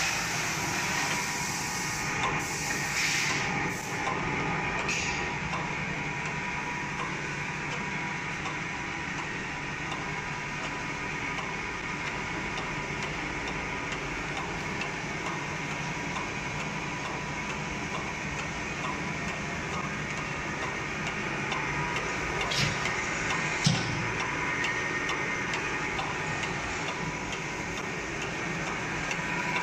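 Napkin paper folding machine running steadily, a constant mechanical hum. A few sharp clicks come a few seconds in, and a louder knock comes near the end.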